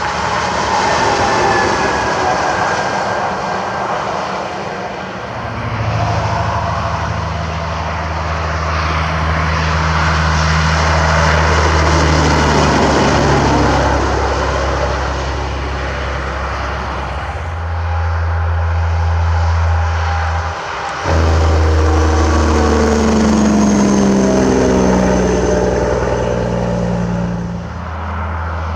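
Semi-truck diesel engines and tyre noise as trucks pass on a highway, one going by close about twelve seconds in. After about twenty-two seconds an engine's note drops in several steps.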